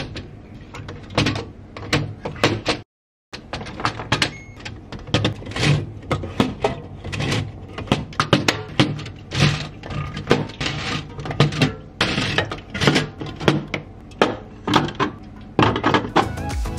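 Aluminium drink cans knocking and clicking as they are set into a plastic and wire can-dispenser organiser in a refrigerator: many short knocks throughout, with a brief silence about three seconds in.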